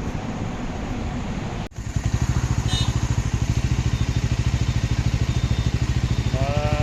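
Motorcycle riding noise, then an abrupt cut to a motorcycle engine idling with a steady, rapid putter. A brief voice-like call is heard near the end.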